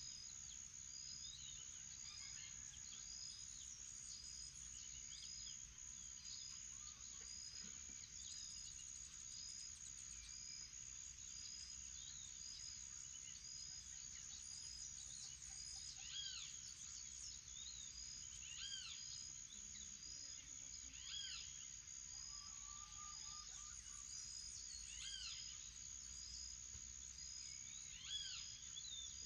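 Tropical morning chorus: a steady high insect drone with a short chirp repeating about once a second, and birds calling with arching whistled notes every few seconds from about halfway through, with a brief trill near the three-quarter mark.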